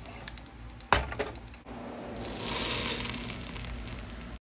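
Metal tongs clicking against a pan of foaming browned butter, with one sharp knock about a second in. Then a hissing sizzle as the hot browned butter is poured onto riced potatoes, loudest a little past the middle, before the sound cuts off abruptly near the end.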